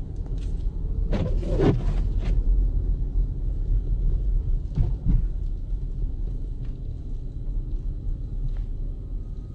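Steady low rumble of a 2014 Jeep Grand Cherokee driving in snow, heard inside the cabin. A few brief higher sounds rise over it about one to two seconds in and again around five seconds.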